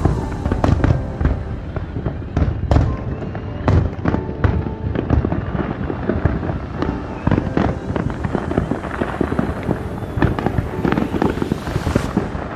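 Fireworks exploding in a dense, continuous barrage: many sharp bangs and crackles in quick succession.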